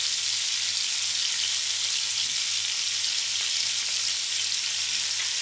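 Chicken pieces and vegetable oil sizzling steadily on a hot tawa griddle.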